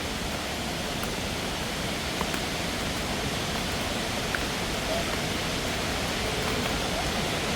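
Steady rush of a waterfall, an even hiss without breaks.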